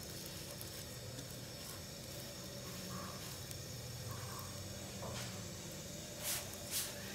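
Mooli paratha sizzling faintly on a hot nonstick tawa as ghee is spread over it by hand, over a steady low hum. Two short, louder sizzles come near the end.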